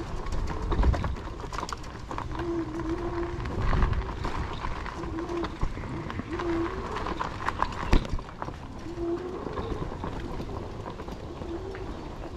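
Nakto Folding OX fat-tyre e-bike rolling over a bumpy dirt trail: a steady low rumble of tyres and wind, with rattles and knocks from the bike as it goes over roots. A sharp knock comes about eight seconds in.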